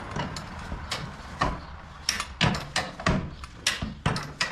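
Irregular metal clanks and knocks, about two a second, from working a truck tire off its rim with a handyman jack and tire tools.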